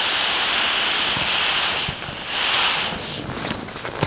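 Air hissing out of the open valve of a Zempire Monstamat self-inflating camping mattress as body weight presses the folded mat down. The hiss breaks off just before two seconds in, comes back in one short second rush, then fades into fabric rustling and crinkling as the mat is lifted to be refolded.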